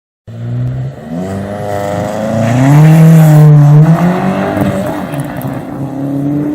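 Car engine revving: the pitch climbs to a loud peak about halfway through, then drops back and wavers lower.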